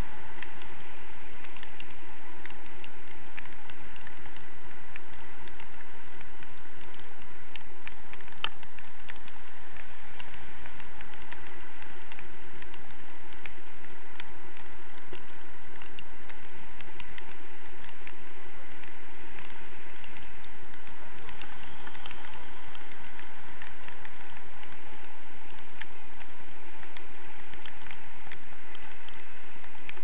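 Steady rush of airflow over an action camera's microphone during a tandem paraglider flight, with a constant scatter of small crackles and ticks.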